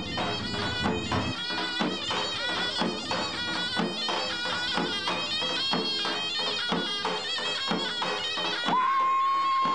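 Davul-zurna folk dance music. A shrill zurna plays an ornamented, wavering melody over regular drum beats, then holds one long steady note in the last second.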